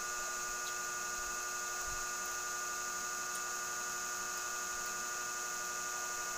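Steady electrical hum with several fixed high-pitched tones over a hiss, unchanging throughout.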